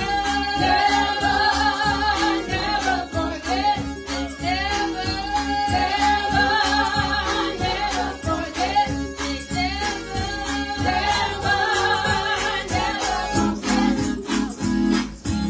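Two women singing a gospel song through microphones, over accompaniment with a steady beat.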